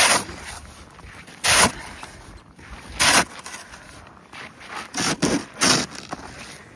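Snow shovel strokes in packed snow: a short scrape-and-crunch about every second and a half, five times.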